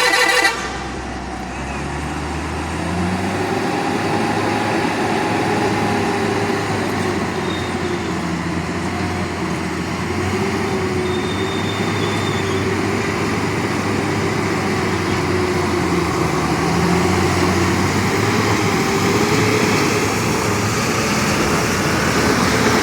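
A vehicle horn blast cuts off about half a second in. After it, a heavy truck's engine runs steadily under road noise, its pitch slowly rising and falling with the revs.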